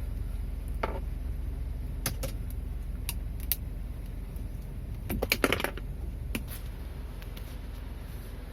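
Scattered plastic clicks and scrapes as a screwdriver pries at a cracked gear lever knob to break it off the gear lever, with the loudest burst of clicks about five seconds in.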